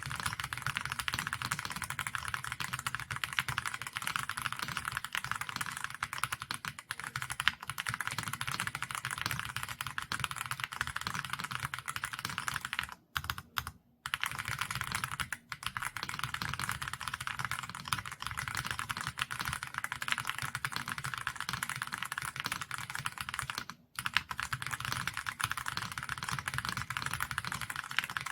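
Fast, continuous typing on a Xinmeng M67 full-aluminium mechanical keyboard with Outemu White Jade linear switches, a light-sounding clack of keystrokes. It breaks off for a moment about 13 seconds in and again near 24 seconds.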